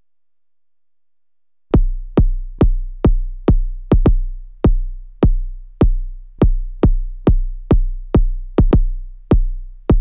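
Noise Engineering Basimilis Iteritas Alter synth drum voice playing a run of deep kick-drum hits, each a sharp click with a low decaying tone. The hits start about two seconds in, roughly two a second but unevenly spaced with a few quick doubles, as a trigger flips the Switchblade switch between two gate patterns.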